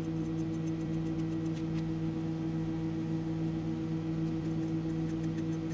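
A steady, low-pitched machine hum with overtones, unchanging throughout, with a few faint light ticks.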